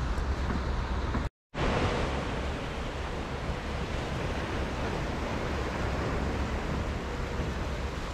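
Small sea waves washing against a rocky breakwater and pebble shore, with wind buffeting the microphone throughout. The sound cuts out completely for a moment about a second in.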